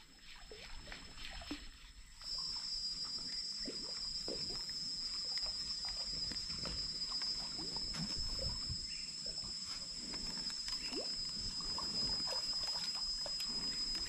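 A steady, high-pitched insect drone sets in about two seconds in and holds, over small trickles, sloshes and light splashes of water around the kayak.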